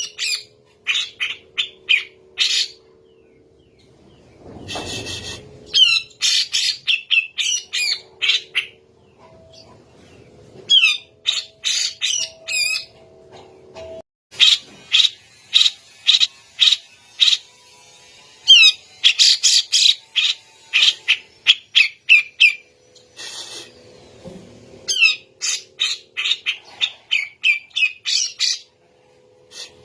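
Grey-cheeked bulbul (cucak jenggot) calling in rapid runs of short, harsh, high notes, each run lasting a second or two, with brief pauses between.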